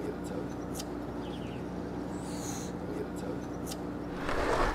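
A steady low hum with faint high chirps and ticks repeating about every three seconds; near the end, the rolling noise of skateboard wheels on concrete comes in louder.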